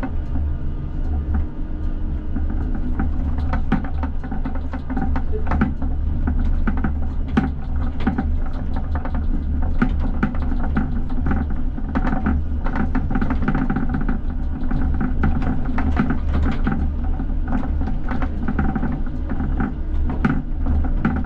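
ČKD Tatra T6A5 tram running, heard from the driver's cab: a steady low hum with a few held tones from the traction equipment, and irregular clicks and knocks of the wheels on the rails and rail joints. It gets a little louder about three seconds in.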